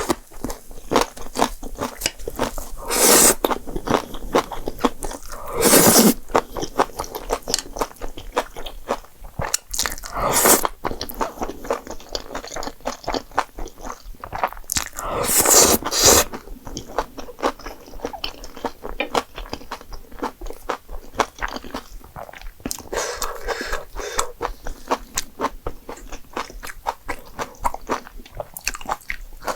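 Close-miked eating: rapid wet chewing and crunching of jjapagetti noodles and spicy green onion kimchi, with a louder, longer mouthful sound every few seconds, about five times.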